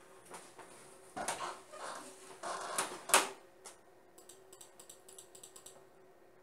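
Computer mouse clicks: a quick run of about ten small clicks near the end, entering a password on a DVR's on-screen keyboard. Before them, louder rustling handling noise in the first half ends in one sharp click about three seconds in.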